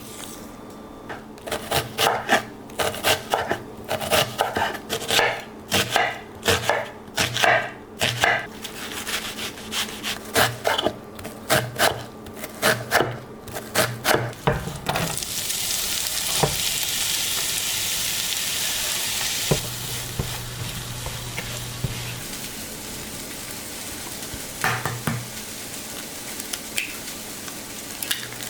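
A run of quick kitchen knocks and scrapes, about two or three a second, as food is worked in a bowl or pan. About halfway through, food hits a hot frying pan and starts sizzling, a steady hiss that eases slightly a few seconds later and keeps going.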